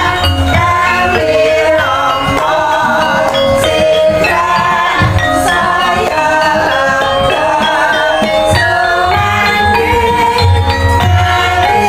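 Javanese gamelan playing: ringing metallophone tones stepping through a melody over deep drum and gong strokes, with a wavering sung vocal line over the top.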